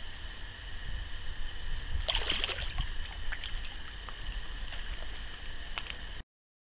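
Water splashing and sloshing as a released carp kicks away from a man's hands in the shallows, a cluster of splashes about two seconds in, then a few small splashes. Under it a steady low rumble and a steady high whine; the sound cuts off suddenly near the end.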